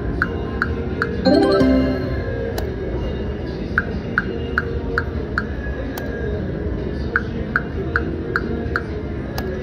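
Bengal Treasures video slot machine spinning: three spins, each ending in a quick run of about five evenly spaced ticks as the reels stop in turn, with a short rising chime about a second in, over steady background music.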